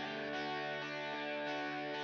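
Background music with guitar, holding a steady chord.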